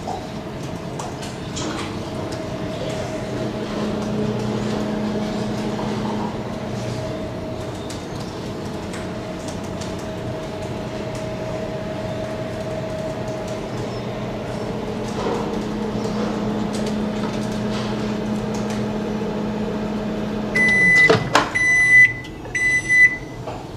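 Microwave oven running with a steady hum while heating chocolate in a 30-second melting round. Near the end the hum winds down and stops, and three beeps mark the end of the cycle.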